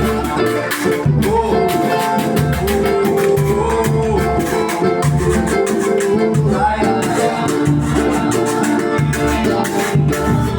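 A samba group playing an instrumental passage, with plucked strings over steady hand percussion and bass.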